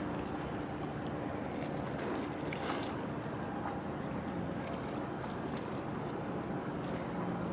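A boat's engine running steadily under way, a low hum under a continuous wash of water and wind noise.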